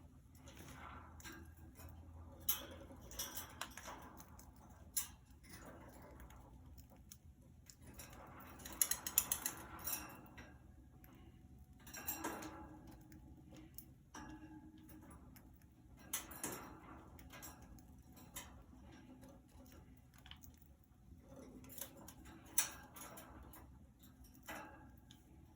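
Scattered light clicks and taps, busiest in a cluster about eight to ten seconds in, from budgies moving about a wire cage.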